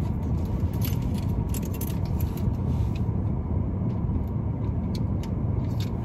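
Steady low rumble of a car idling, heard inside its cabin, with a few short sharp clicks of a small liner-lock pocket knife being opened and closed to check whether adjusting its screws has stopped the blade rubbing on the liner.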